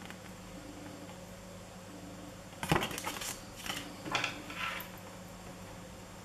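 Handling noise: a quick run of clatters and clicks with a light metallic clink, over about two seconds, as a wristwatch and its paper booklet are moved about on a tabletop.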